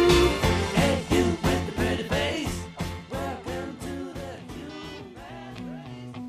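Background pop-rock music with a steady beat, fading down; the pattern changes near the end as a new, guitar-led passage comes in.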